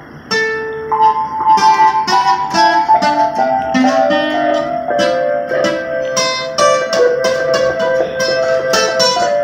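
Acoustic guitar and electronic keyboard playing a tune together: plucked guitar notes over held keyboard notes.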